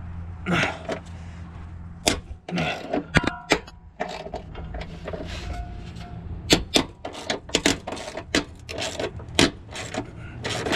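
Hand tools clinking and clanking against metal suspension parts in irregular sharp knocks, under a low hum that fades after about two seconds.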